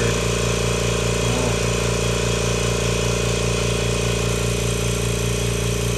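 Kobalt 26-gallon electric air compressor running steadily with an even low pulsing, filling its tank under rising load as the pressure builds.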